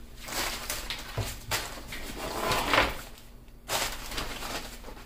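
Thin nylon rain cover rustling and crinkling as it is unfolded and pulled over a camera backpack, in two spells of handling with a short lull about three seconds in.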